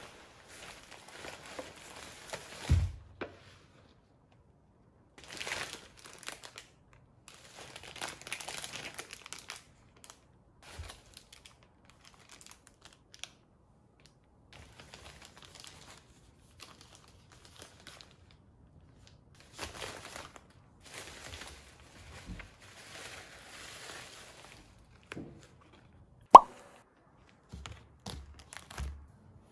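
Plastic shopping bag and food wrappers crinkling in bursts as packaged convenience-store food is handled and set down on a table. There is a dull thud about three seconds in and a sharp knock, the loudest sound, a few seconds before the end.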